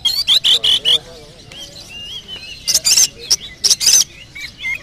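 Oriental magpie-robin (kacer) singing a fast, varied song: quick whistled notes gliding up and down, broken by two spells of short harsh rasping notes, the first at the start and the second a little past halfway.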